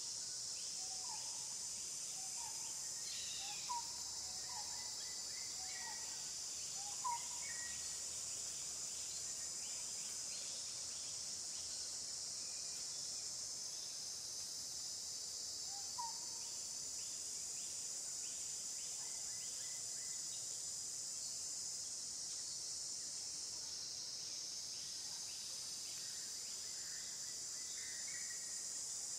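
Insects droning steadily at a high pitch, with short rising chirps repeated about once a second during the first seven seconds and once more about sixteen seconds in.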